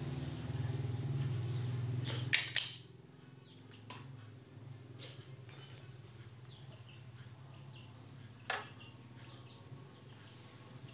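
A steady low hum that stops just after two loud sharp clicks a little over two seconds in, followed by a few scattered light clicks and knocks.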